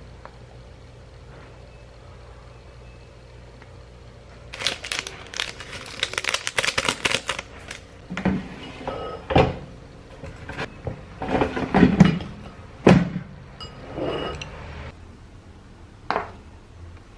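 A low steady hum at first, then about three seconds of dense crinkling as a packet of seaweed topping is torn and shaken out. A string of knocks and taps follows as utensils and a paper noodle cup are handled, with one last knock near the end as the cup is set down on a table.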